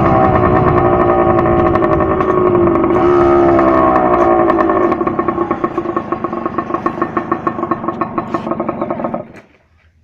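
Yamaha DT 125's single-cylinder two-stroke engine running as the bike rides along. The revs drop about three to four seconds in, then it runs unevenly at low revs and cuts out about nine seconds in.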